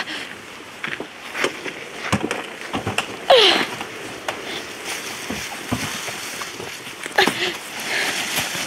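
A limp body being dragged by the legs across fallen leaves: uneven rustling and scraping strokes, with a few strained grunts from the person pulling, the loudest about three seconds in.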